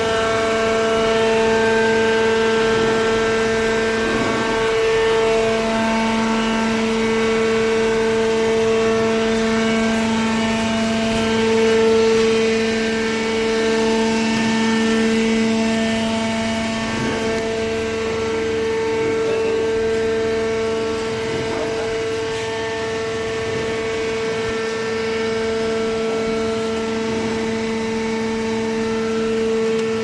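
Hydraulic carton baler's power unit running: the electric motor and hydraulic pump give a steady, pitched hum with a whine in the overtones.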